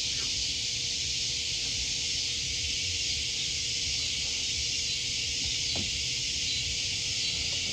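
Steady high-pitched hiss with no clear event, and a faint click about six seconds in.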